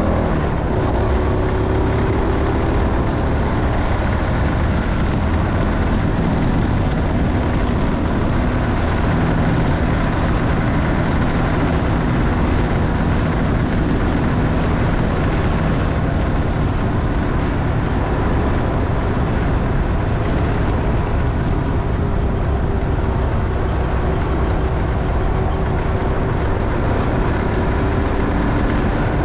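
Motorcycle engine running under way, with steady road and wind noise; the revs drop in the first couple of seconds, then hold fairly even.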